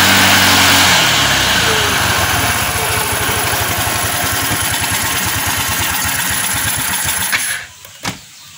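GY6 four-stroke single-cylinder scooter engine running on its newly fitted vacuum fuel pump: a brief rev that falls back to a steady idle, then the engine cuts off suddenly about seven and a half seconds in, followed by a single click.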